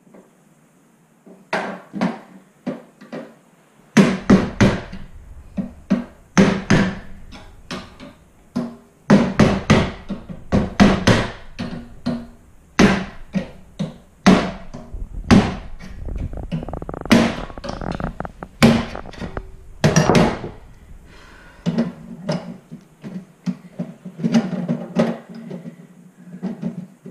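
Hammer striking a screwdriver set in the knockouts of a steel electrical panel enclosure, driving the knockout slugs out. Sharp metallic strikes come in irregular clusters with a short ring from the sheet-metal box, starting about a second and a half in.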